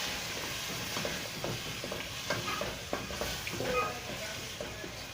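Stew of meat, potatoes and garlic-ginger paste sizzling in a pot while it is stirred, with the spoon scraping and knocking against the pot.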